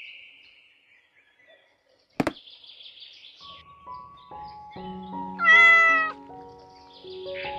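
A cat meowing once, a little past the middle: the loudest sound, over soft background music. A single sharp click comes about two seconds in, after near silence.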